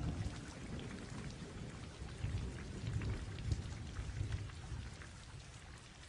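Rain falling with patters of drops and low rumbles of thunder, slowly fading out.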